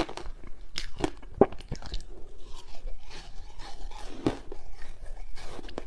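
Ice dusted in matcha powder being chewed with the mouth close to a lapel microphone: a run of irregular crisp crunches. The loudest crunches fall about a second and a half in and just past four seconds.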